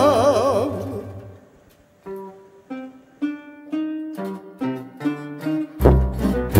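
Background song: a held, wavering sung note fades out. After a short pause a plucked-string melody picks out single notes, and the full band with bass and drums comes in near the end.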